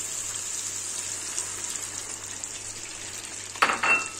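Crumbled white cheese frying in hot oil in a pan, a steady sizzle. Near the end there is a brief, louder burst of sizzling and crackling as eggs go into the hot oil.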